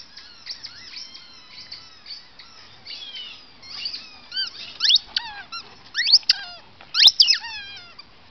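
Dog chewing a squeaky toy: rapid high-pitched squeaks that slide up and down in pitch, coming faster and louder in the second half.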